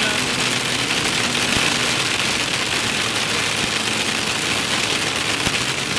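Hail and rain pelting a moving vehicle, heard from inside the cab: a dense, steady clatter of small hits on the roof and windshield over the low hum of the engine.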